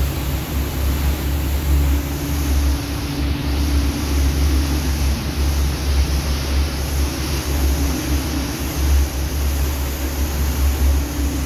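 A tour boat under way: its engine drone as a steady low rumble, with an even rushing hiss over it and a faint hum that comes and goes.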